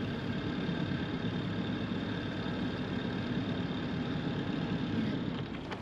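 A boat's inboard engine idling steadily, holding the catamaran against the river current while the crew work on a stuck anchor.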